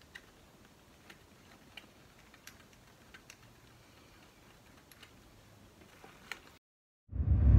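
Faint, scattered light clicks and taps of hands working the bailout regulator's fittings on a rebreather harness. The sound drops out about six and a half seconds in, and loud music starts just after.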